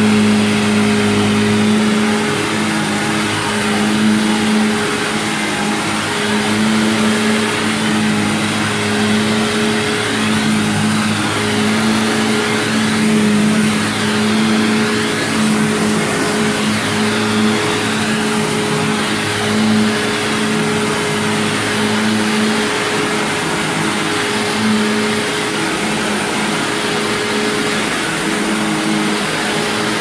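Early-2000s Hoover Self Propelled WindTunnel Ultra upright vacuum running on carpet: a loud, steady motor and airflow rush with a low hum that swells and fades about every second as it is worked back and forth.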